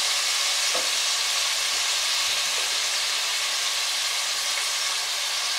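Marinated chicken pieces frying in a pan of hot groundnut oil: a steady, even sizzle.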